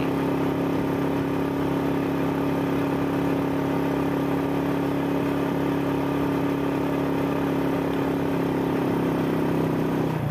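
Motorcycle engine running at a steady cruising speed, heard from the rider's seat: an even, unchanging engine hum with road and wind noise.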